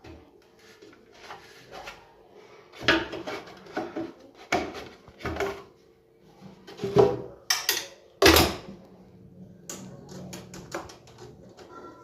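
Tools and metal engine parts being handled during work on a motorcycle engine: irregular knocks and clinks, a few louder clatters, over a faint steady hum.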